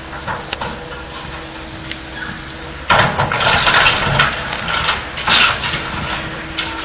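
Excavator engine running steadily. About three seconds in, a loud crunching and cracking of building material being broken and crushed in the demolition lasts a couple of seconds, then the engine is heard alone again.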